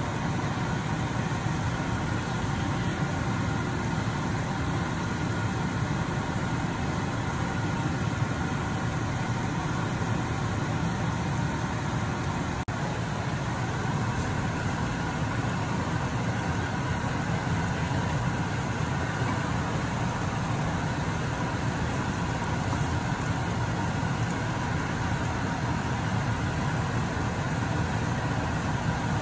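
Steady, even rumbling noise, strongest in the low range, with no distinct strokes or changes.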